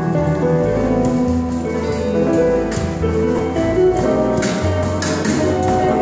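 Live band playing instrumental music: electric guitar over bass guitar and a drum kit, with steady cymbal strokes.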